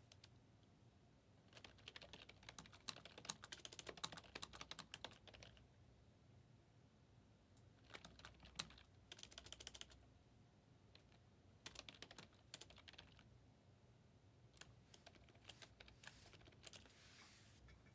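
Faint typing on a computer keyboard: four short runs of rapid key clicks with pauses between them.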